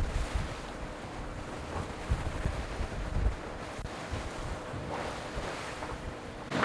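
Wind buffeting the microphone and water rushing along the hull of an offshore racing sailboat under way, rising and falling in uneven gusts, with a faint steady hum underneath.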